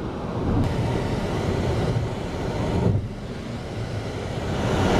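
Road and tyre noise heard from inside a car travelling on a freeway: a steady rush that drops off suddenly about three seconds in, then builds again toward the end.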